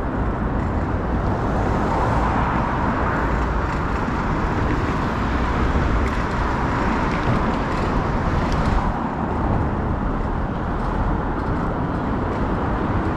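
Steady city street traffic noise: the engines and tyres of passing cars, with no single event standing out.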